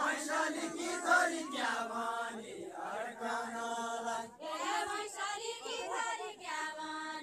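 A group of voices singing a Deuda folk song together in long held notes, phrase by phrase, with brief breaks between lines.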